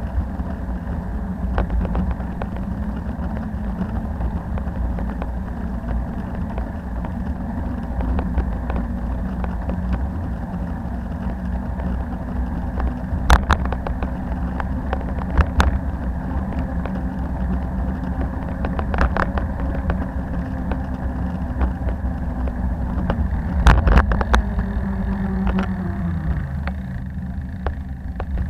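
Street traffic heard from a moving bicycle: a steady low rumble of wind and road noise with the hum of motor vehicle engines, and a few sharp knocks. Near the end a vehicle's engine note falls in pitch as it slows.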